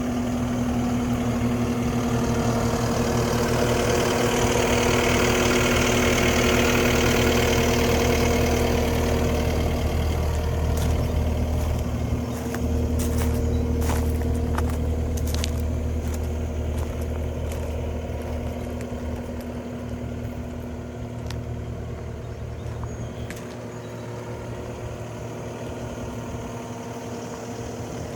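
A CAT 279D skid steer's diesel engine runs steadily at idle with a constant whine over it. About halfway through come a few scattered clicks and knocks, and the sound then eases down a little.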